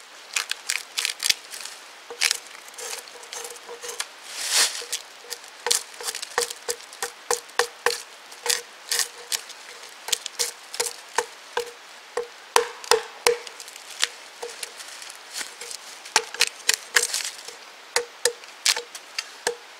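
Hatchet blade chopping into a fallen log: a long run of quick, irregular sharp blows, each with a short woody ring, easing off briefly about three quarters of the way through.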